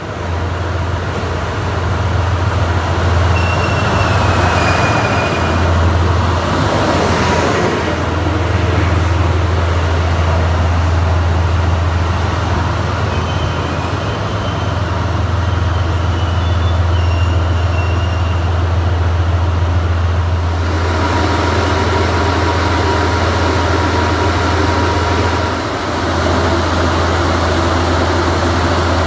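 DF200 diesel-electric freight locomotive's diesel engines running close by: a steady, loud, low drone.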